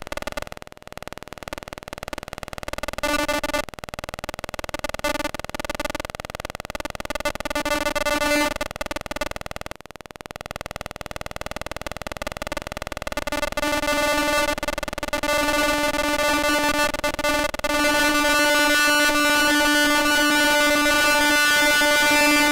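Creaking of a 400-year-old linden tree in strong wind: a drawn-out pitched creak with many overtones that flutters and breaks off a few times. From about two-thirds of the way through it holds steadier and louder, over a hiss of wind.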